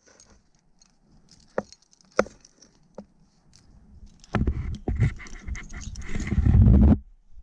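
Trad-climbing gear clinking and scraping as a climber moves up granite: a few sharp clicks, then from about four seconds in a few seconds of louder rubbing and scraping against the rock and the camera, which stops suddenly near the end.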